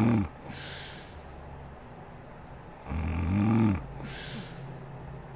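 A sleeping woman snoring. The end of one loud, low snore comes right at the start and a second comes about three seconds in, each rising then falling in pitch. Each snore is followed by a breathy, hissing exhale.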